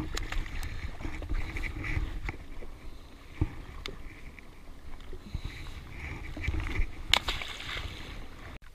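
Small waves lapping against the hull of an anchored jet ski over a low rumble of wind, with a few sharp clicks and knocks, two of them clearest about three and seven seconds in, as a fish is handled and unhooked in a landing net.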